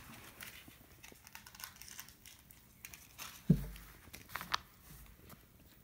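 Faint crinkling and rustling of plastic tackle packaging being handled, with scattered light clicks and one louder thump about three and a half seconds in.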